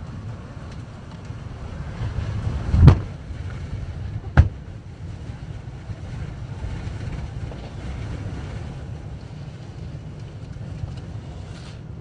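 Blizzard wind buffeting a microphone that has lost its wind shield: a steady low rumble with hiss above it. Two sharp knocks break through, about three seconds in and again about a second and a half later.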